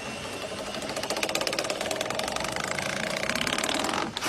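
A small engine-driven machine running steadily with a rapid, even pulse, growing a little louder about a second in.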